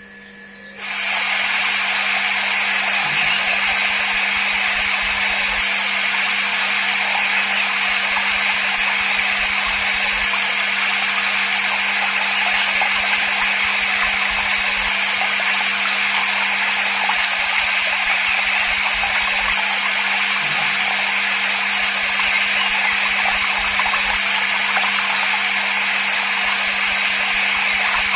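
Miniature electric water pump running with a steady hum, and water spraying from a small brass spray nozzle with a loud, even hiss that starts about a second in.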